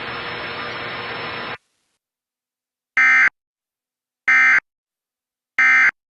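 Emergency Alert System end-of-message signal: three short, loud bursts of modem-like data tones, the "NNNN" EOM code, about 1.3 seconds apart. Before them a steady hiss cuts off about a second and a half in.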